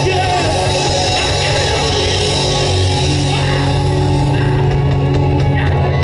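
Live rock band playing loud: distorted electric guitars, bass and drums with long held notes, recorded from the crowd in front of the stage.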